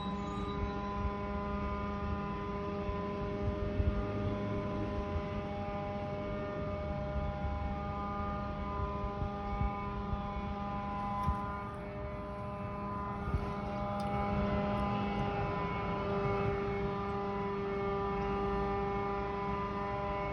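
A steady droning hum made of several held tones over a low rumble, of unknown mechanical origin.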